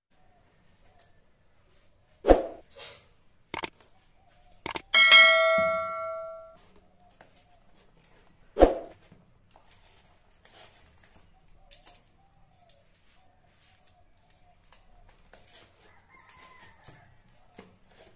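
A cardboard parcel is set down and handled on a granite countertop, with two sharp knocks about six seconds apart and a few lighter taps. About five seconds in, a ringing tone of several steady pitches sounds and fades over about a second and a half.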